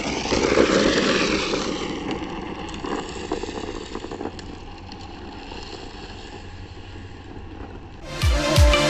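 Drift trike running down asphalt, its wheels rolling and sliding with a rushing hiss that is loudest about a second in and then settles to a weaker steady hiss. Music with a heavy beat comes in near the end.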